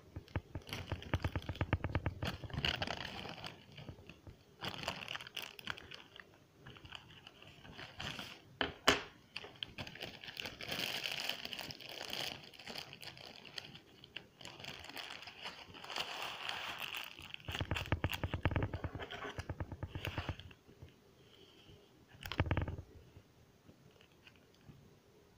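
Close-up bouts of rustling and scraping, each lasting a second or two, broken by scattered clicks and a sharper knock about nine seconds in. The sounds stop near the end.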